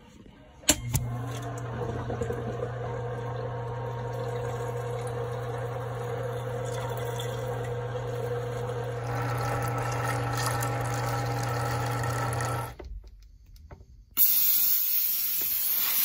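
Condensate pump switching on with a click and running with a steady motor hum as it pushes water, for about twelve seconds before it stops; the pump is pumping, so the drain line must be blocked. About two seconds later a loud hiss starts: nitrogen being blown through the condensate tubing.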